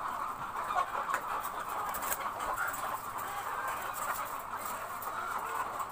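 A flock of chickens clucking and chattering in a steady, continuous chorus.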